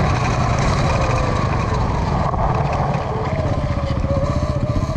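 E-Ride Pro SS electric dirt bike riding over dirt: the electric motor's whine wavers with the throttle and sinks in pitch about three seconds in as the bike slows, over a heavy low rumble of tyres and wind.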